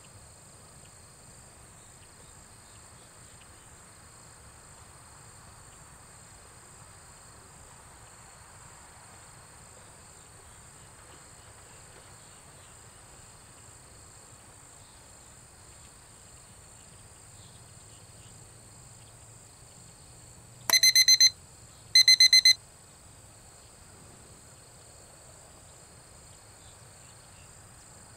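Steady high-pitched chorus of insects. Past the middle, two short bursts of rapid, high-pitched electronic beeping about a second apart, much louder than the insects.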